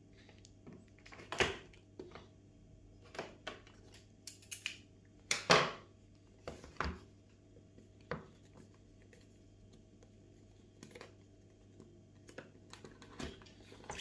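Scissors snipping through the seal tabs on a smartphone box, then the box being handled and its lid lifted: scattered sharp snips, taps and scrapes, the loudest about five and a half seconds in.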